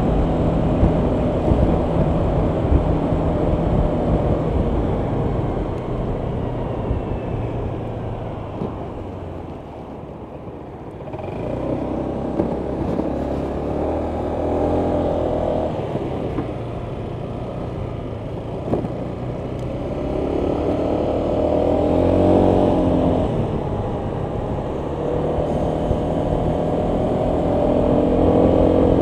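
Honda PCX 125 scooter's single-cylinder engine running on the move, with wind and road rush. The engine note swells and eases several times as the throttle opens and closes, and it quietens to a low point about ten seconds in.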